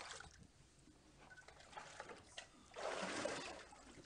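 Water splashing and sloshing in a small baptismal tank as a man is immersed, a burst of about a second near three seconds in.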